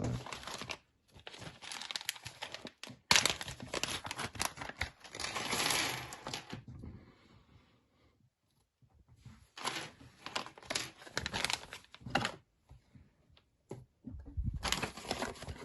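Packaging being crinkled and torn open by hand in several bouts, with a pause of a couple of seconds in the middle.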